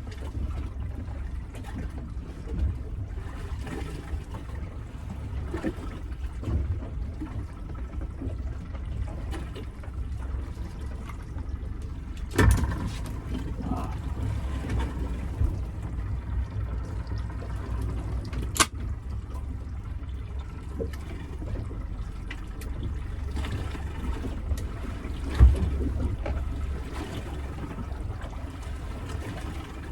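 Seawater sloshing and lapping against the hull of a small fishing boat at sea, over a steady low rumble. A few sharp knocks sound against the boat, the loudest about twelve seconds in and again near twenty-five seconds.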